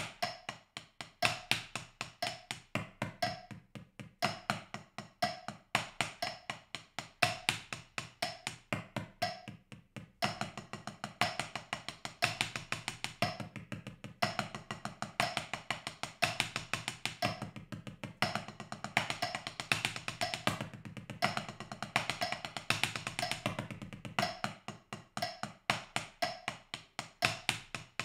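Drumsticks playing a 6B sticking pattern on a four-zone practice pad, the strokes moving between the pad's higher and deeper zones. The strokes get noticeably denser about ten seconds in as the pattern moves to a faster subdivision. A metronome clicks along about once a second.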